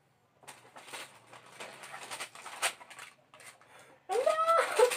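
Cardboard shoebox lid being lifted and tissue paper rustling for a few seconds. About four seconds in comes a short, louder high-pitched call that rises and falls.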